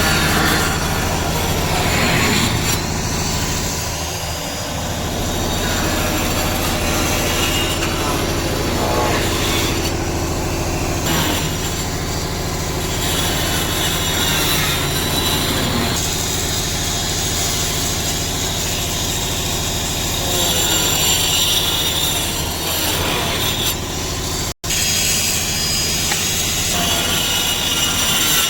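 A machine or engine running steadily with a constant low hum and a noisy, grinding upper layer. It cuts out for an instant about 25 seconds in.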